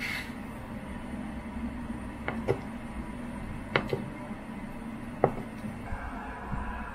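Large kitchen knife cutting through soft tofu and tapping the wooden cutting board: five sharp taps, the first four in two quick pairs, over a steady low hum.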